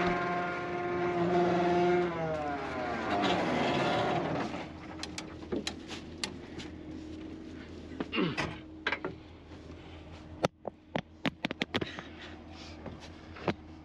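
A John Deere 7290R tractor's diesel engine runs steadily, then is shut off about two seconds in, its note sliding down and dying away over a couple of seconds. Scattered sharp clicks and knocks follow.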